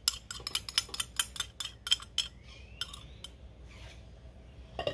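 Metal spoon clinking and scraping against a ceramic bowl in quick taps while passata is scraped out into a pot of sauce. The clinks come fast at first, thin out about two seconds in and stop after about three.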